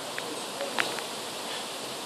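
Storm wind rustling through tree leaves: a steady hiss, with a few faint clicks.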